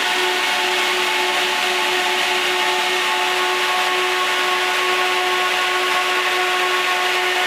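TA500DC 12 V server cooling fan running at speed: a steady rush of air with a constant whine of several steady tones.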